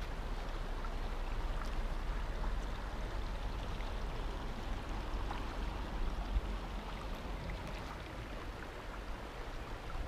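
Shallow river water flowing steadily over rocks and boulders.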